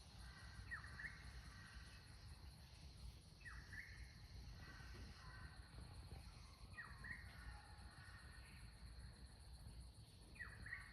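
Faint outdoor ambience: a bird calls four times, about every three seconds, each call a quick falling note followed by a short held tone, over a steady high insect trill.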